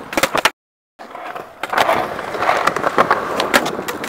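Skateboard wheels rolling on concrete with repeated sharp clacks and knocks of the board. About half a second in, the sound drops out completely for half a second.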